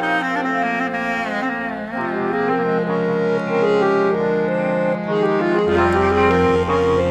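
Instrumental passage of Balkan-style ensemble music: accordion and clarinet over sustained chords. The melody wavers with vibrato at first, then moves in steps, and a deep bass note comes in near the end.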